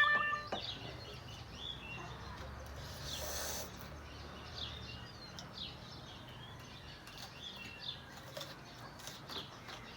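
Background music cuts off about half a second in, leaving faint small birds chirping now and then, with a brief rustle about three seconds in and a few faint clicks.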